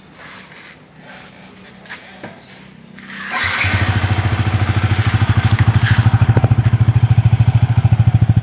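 Yamaha FZ150i single-cylinder four-stroke engine started about three seconds in, after a few faint clicks. It settles into a steady, evenly pulsing idle through the stock muffler with its baffle removed.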